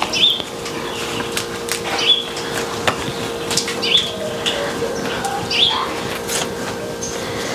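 A bird calling outside: a short, high chirp repeated about every two seconds, over scattered faint clicks and a low steady hum.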